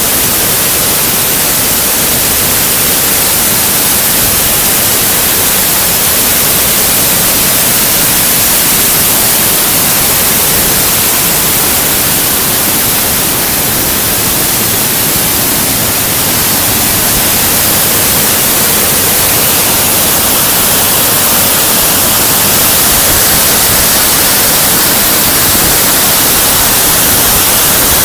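A large waterfall falling into its plunge pool close by: a loud, steady rush of water that holds level throughout.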